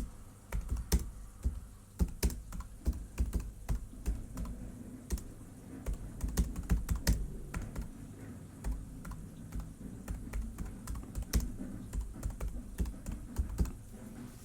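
Typing on a computer keyboard: a quick, uneven run of key clicks, several a second, with short pauses between bursts.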